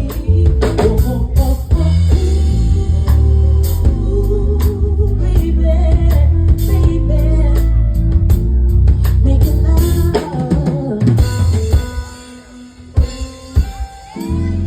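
Live band music with a drum kit, bass and a singer. The music drops away about twelve seconds in, leaving a few scattered drum hits.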